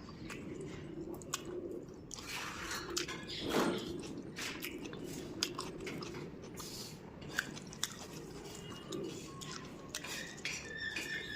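A person chewing a mouthful of food close to the microphone: wet mouth sounds broken by irregular crunches.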